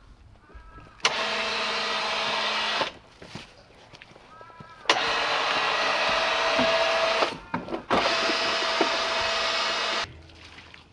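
An electric motor switched on and off three times, each spell about two seconds long, starting with a click, running with a steady hum and hiss, and cutting off abruptly.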